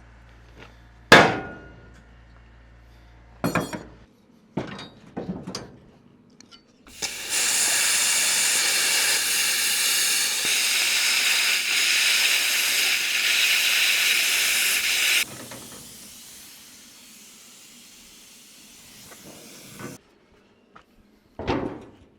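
Welder arc burning in one steady run of about eight seconds, a loud even hiss and crackle that starts and stops abruptly with the trigger. A few metal knocks and clicks come before it, and more near the end.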